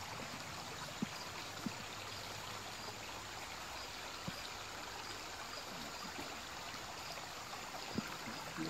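Creek water running steadily over a shallow rocky riffle, with a few faint clicks over it.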